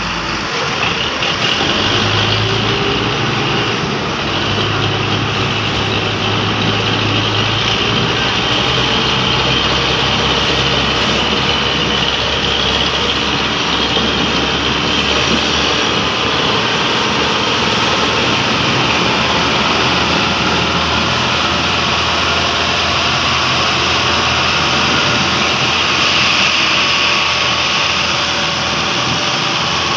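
Rusi 520 tractor's diesel engine running steadily under load while hauling a heavily loaded trailer.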